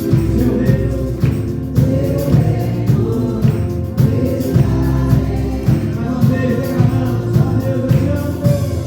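Gospel song with a choir singing, accompanied by a drum kit keeping a steady beat.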